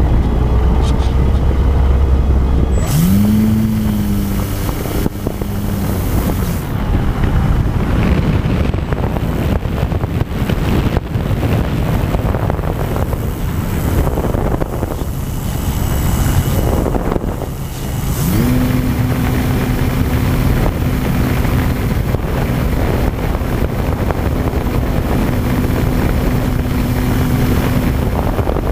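Wind rushing over an onboard camera in flight, with the electric motor and propeller of an E-flite Apprentice radio-controlled trainer plane. The motor's tone sweeps up as the throttle opens about three seconds in and fades a few seconds later. It sweeps up again about eighteen seconds in and then holds steady.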